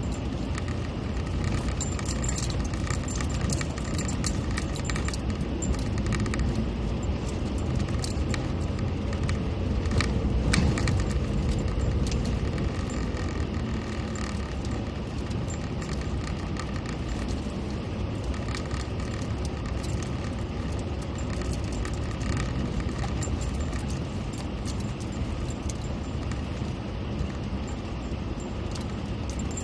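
Vehicle driving over a rough track: a steady engine and tyre rumble with constant rattling and clinking, a little louder about ten seconds in.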